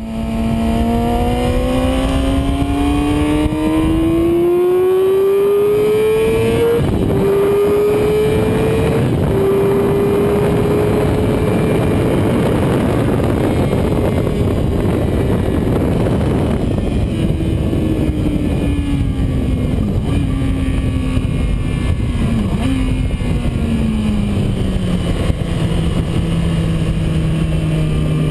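Yamaha R6 inline-four sport bike engine revving hard, heard onboard. The engine note climbs through the gears with upshifts about 7 and 9 seconds in, then holds high under a rush of wind noise. Past the halfway point the revs fall as the rider brakes, with short downshift blips, and the note starts rising again at the very end.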